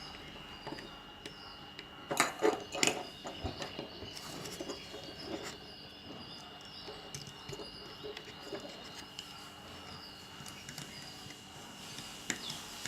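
Hands working wire and fittings on a wiring board: a cluster of sharp knocks and clicks about two to three seconds in, then scattered small clicks, over a steady high-pitched whine.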